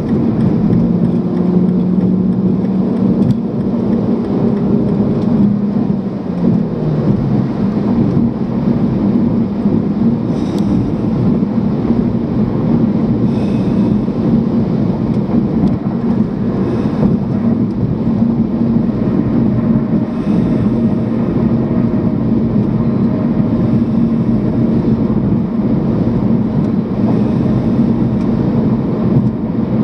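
Car driving at highway speed, heard from inside the cabin: steady tyre and road rumble with a low engine drone that drops in pitch about six seconds in.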